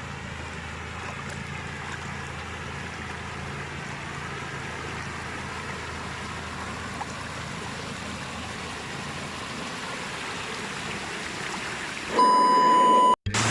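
Steady rush of stream water flowing over rapids. Near the end a loud, steady high tone sounds for about a second, then cuts off suddenly.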